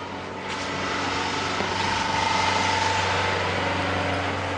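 Engine of a heavy armoured police truck running close by, a steady hum under a dense hiss, swelling slightly in the middle.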